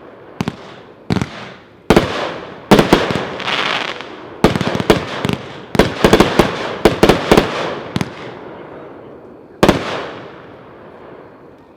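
A 25-shot aerial firework cake (mixed colours with strobes) firing: a rapid, uneven string of loud shell bursts, several in quick clusters, each trailing off in a noisy rumble. A last single bang comes near the end, then dies away.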